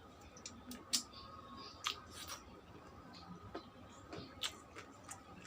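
Close-up eating sounds: a person chewing food, with a handful of sharp, wet mouth clicks and smacks at irregular intervals.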